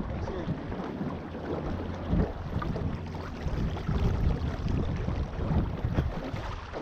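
Wind buffeting the microphone on a small fishing boat: a low, uneven rumble that swells in gusts.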